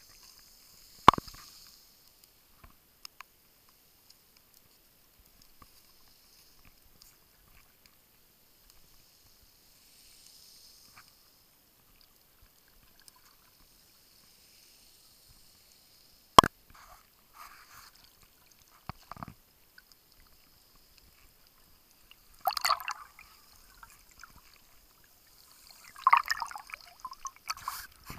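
Underwater sound picked up through a Paralenz dive camera's housing at shallow depth: mostly quiet, with a sharp click about a second in and another about halfway through. Water sloshes and gurgles in bursts near the end as the camera comes up to the surface.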